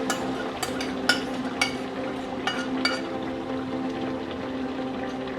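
Metal spoon stirring pork and koorkka curry in a pan, clinking against the pan about eight times in the first three seconds, over a faint sizzle and a steady low hum.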